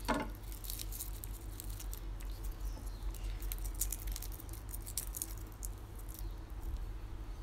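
Fingers peeling the dry, papery skins off old, shrivelled garlic cloves: light, irregular crackling and rustling, over a steady low hum.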